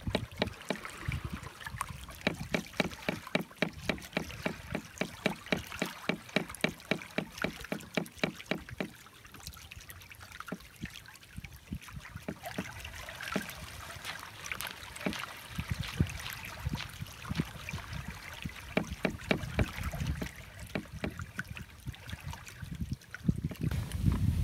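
Small waves slapping and lapping against the hulls of a Hobie Getaway catamaran as it sails through light chop: a rapid, uneven run of short slaps over a low wash of water. The slapping eases off for a few seconds in the middle, then picks up again.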